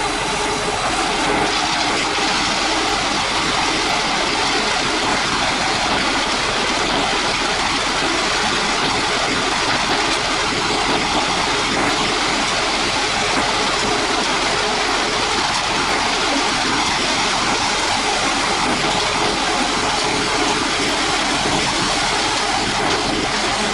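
Heavy construction machinery engines running steadily, a continuous even noise with no breaks or sudden events.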